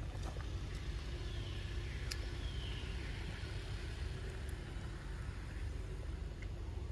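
A steady low rumble, with a few faint clicks and a faint, brief high glide in the first half.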